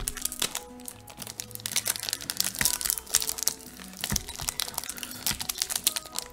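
Plastic wrapper of a trading-card booster pack crinkling and crackling in irregular bursts as it is handled in the hands.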